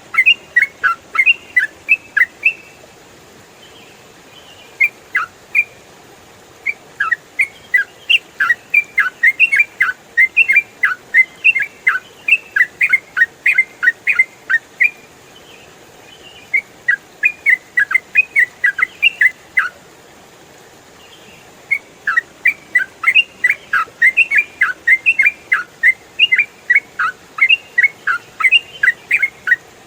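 Yellow-vented bulbul (trucukan) singing in long, rapid runs of clear, falling whistled notes, about four or five a second, with pauses of a second or two between runs.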